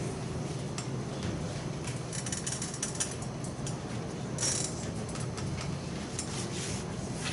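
Chalk tapping and scratching on a blackboard in irregular clusters of short strokes, over a steady low room hum.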